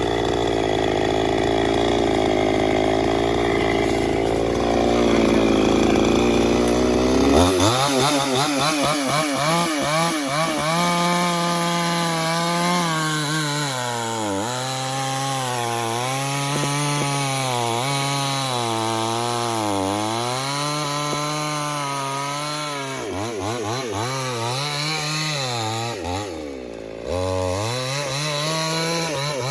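Two-stroke chainsaw cutting into a tree trunk. For the first seven seconds or so it runs steadily at full speed, then its engine pitch rises and dips again and again as it works through the cut, with a brief drop near the end.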